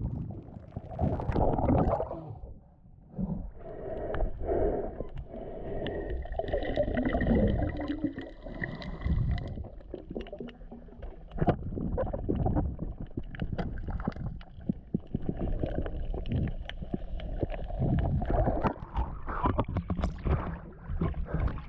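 Underwater sound through a GoPro housing: muffled gurgling water movement with many scattered sharp clicks. Near the end, the camera breaks the surface with splashing.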